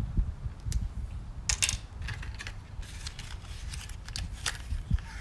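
Light clicks and rattles of twist-lock bulb holders being handled and turned into the back of a gauge cluster, with a sharper group of clicks about a second and a half in.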